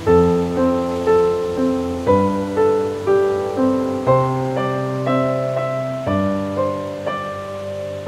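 Slow, gentle solo piano music: a broken-chord pattern with a new note about every half second over sustained bass notes that change about every two seconds.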